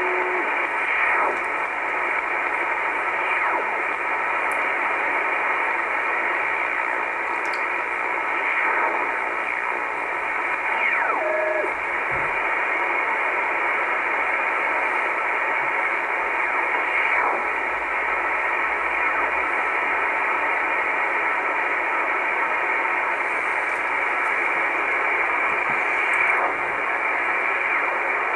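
Icom IC-R8500 shortwave receiver in upper sideband giving out a steady hiss of band noise as it is tuned up through the 19 MHz band, with a few brief whistles sliding in pitch as the dial passes. No stations come through: a quiet, empty stretch of the band.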